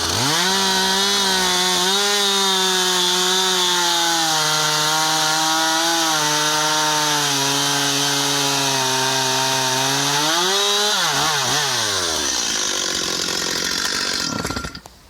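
Stihl MS270C 50cc two-stroke chainsaw held at full throttle while cutting, its pitch sagging under load. It drops back to idle about eleven seconds in and shuts off near the end. The saw runs well, but the chain is dull and needs sharpening.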